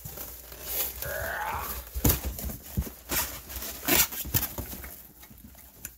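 Scattered knocks and clicks of bench-grinder parts and packaging being handled and rummaged through, over a steady low hum. A brief wavering whine about a second in.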